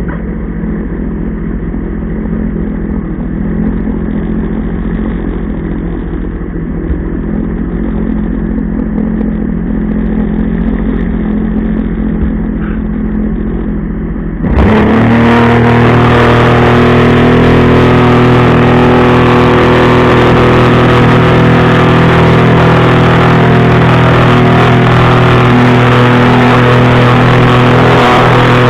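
Jet ski engine running steadily. About halfway through it turns suddenly much louder and the engine pitch steps up, then holds a high, steady pitch under throttle.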